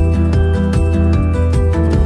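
Background music with a steady beat and a melody of changing notes over a strong bass line.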